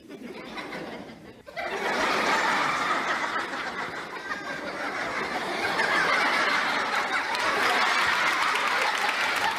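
Studio audience laughing: it starts small, then swells into loud, sustained laughter about one and a half seconds in.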